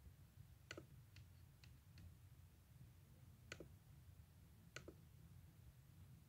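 Near silence over a low hum, broken by faint, sharp clicks of a computer being clicked: four in quick succession about a second in, then one near the middle and one about five seconds in.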